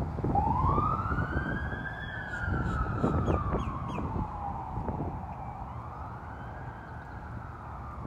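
A siren wail, slowly rising and falling in pitch twice, with a few short chirps over it about three seconds in.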